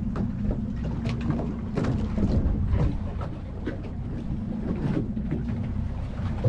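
Boat's outboard motors running with a steady low hum, under wind noise on the microphone and scattered short knocks and clicks from the deck.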